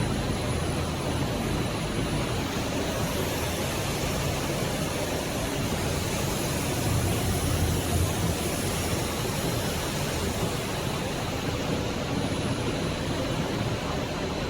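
Steady running noise of PVC twin hose bonding machinery: an even, dense hiss over a low hum, with a faint thin high tone above it and no break.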